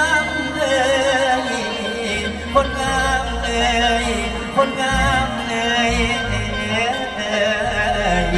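Live Isan mor lam song: a male singer sings long, wavering, ornamented lines over the band's accompaniment, with two sharp hits a couple of seconds apart near the middle.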